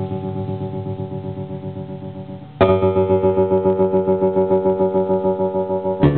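Electric bass guitar played through a homemade fidget-spinner tremolo pedal: the spinning fidget spinner over a photoresistor chops the volume into a fast, even pulsing. A held note fades, a new note is plucked about two and a half seconds in, and another just before the end.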